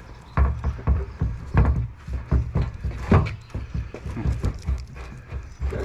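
Irregular hard knocks and clunks of a pickup's headlight assembly being pushed and wiggled into its mounting, about a dozen in all, the loudest near a second and a half and three seconds in.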